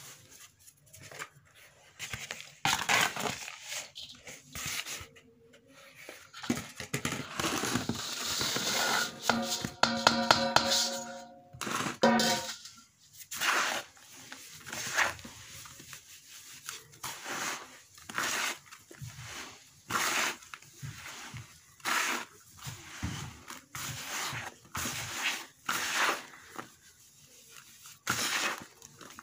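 Hands crumbling and squeezing a dry sand-and-cement mix in a plastic tub: gritty crunching and rustling in repeated strokes, about one every second or two. About ten seconds in, a brief pitched tone with overtones sounds for a couple of seconds.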